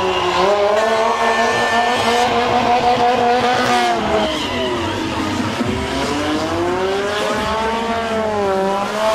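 Stunt motorcycle's engine revving hard during a burnout, its pitch rising and falling several times as the throttle is worked, with the rear tyre spinning on the tarmac.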